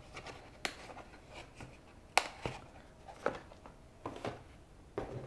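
Hands handling packaging and accessories: scattered light clicks and taps, the sharpest about two seconds in.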